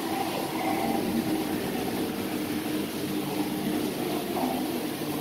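Steady ambience inside an indoor boat ride: an even hum and hiss with faint sustained tones over it.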